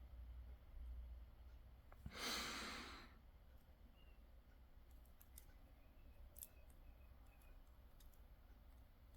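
A single breathy sigh lasting about a second, then a few faint small clicks of metal lock pins and tweezers being worked into the back of a padlock's plug, in near silence.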